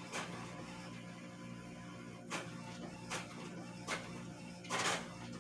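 Soft background music: steady held tones under a slow, regular beat of sharp ticks about every 0.8 s.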